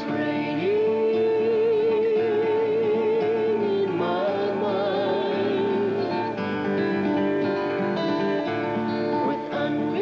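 A folk-pop group performing a song with acoustic guitar backing and a long held vocal note with vibrato, followed by more sustained sung harmony notes.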